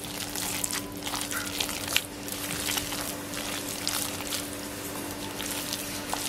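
A bare hand squeezing and mixing a thick, wet batter of grated potato, egg, gram flour and cornflour in a glass bowl: a run of irregular wet squelches.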